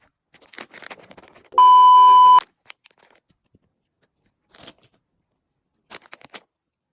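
A single loud, steady electronic beep lasting under a second, about a second and a half in, among light clicks and rustles of the item being handled.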